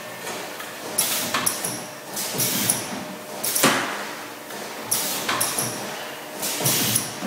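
3-axis CNC tube bender working through an automatic bend cycle: a series of short hissing and clunking bursts, about eight in seven seconds, as the bend head clamps, bends and turns the tube.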